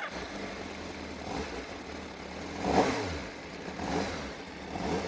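Honda CBR1000RR-R Fireblade SP's inline-four engine idling through its stock titanium Akrapovič exhaust just after starting. It is given short throttle blips about once a second, the biggest about three seconds in.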